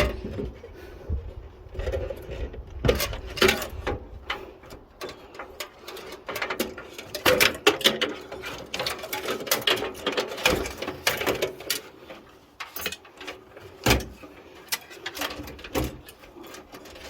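Cables being unplugged inside an old desktop computer case: irregular clicks, knocks and rattles of plastic connectors against the sheet-metal chassis.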